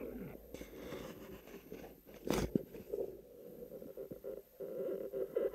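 Faint underwater crackling and rustling from a spearfisherman swimming with his speargun, heard through the camera underwater, with one sharper knock about two and a half seconds in.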